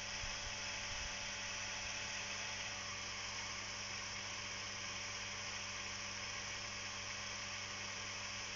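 Electric garden pump (toom Hauswasserautomat) running with a steady hum and whir. It is pumping into a sprinkler that lets too little water through, which the owner thinks is why it runs with odd, rough noises.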